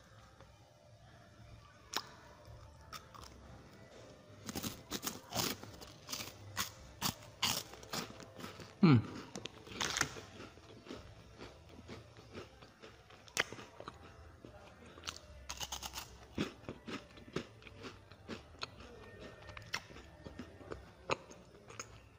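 Close-miked chewing and biting of crisp, chocolate-coated packaged cake bars: a steady run of irregular crunches. The loudest crunch comes a little under halfway and is followed by a short sound that glides downward in pitch.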